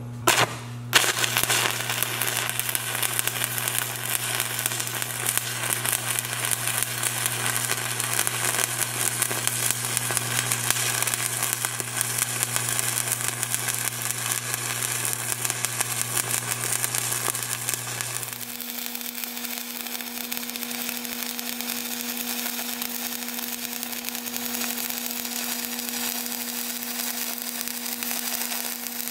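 Stick-welding arc from a 7018 electrode laying a cover pass on a steel test plate: a steady dense crackle and sizzle that strikes up sharply about a second in and runs on. Under it is a steady low hum that shifts to a higher pitch about two-thirds of the way through, where the crackle gets a little quieter.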